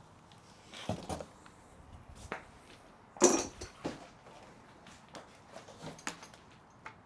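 Scattered handling noises in a small room: a few short knocks and clatters, the loudest about three seconds in, with lighter ticks around it.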